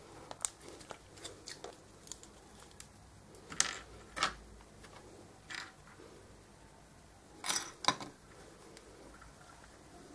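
Faint clicks and light rustles of small plastic and metal model-car parts and a glue tube being handled on a tabletop, with a few louder clicks in pairs about four and eight seconds in.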